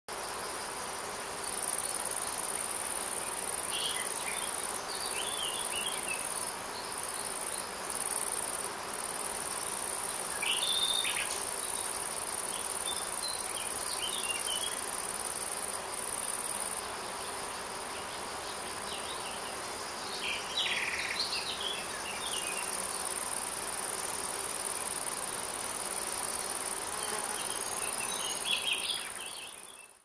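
Steady high-pitched insect chirring, cricket-like, running without a break. Short chirps come in about four times, and the sound fades out at the very end.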